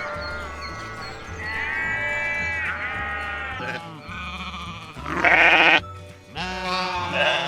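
Sheep bleating over background music with a steady bass line: a loud, wavering bleat about five seconds in and a shorter one near the end.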